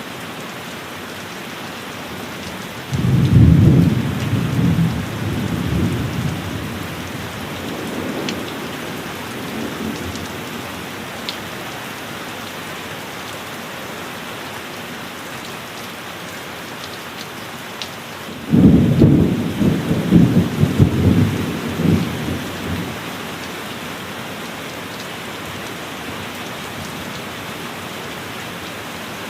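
Steady heavy rain, with two rolls of thunder. The first begins a few seconds in and rumbles away slowly. The second, more crackling, comes a little past the middle and dies away after about four seconds.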